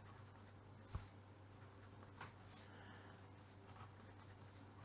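Near silence, with faint scratches of a fine felt-tip pen writing on paper and a soft tap about a second in.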